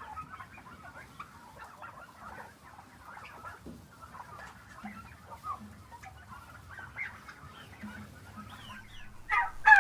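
A flock of heritage turkeys making many soft, scattered clucks and chirps. Near the end a louder, rapid gobble breaks out.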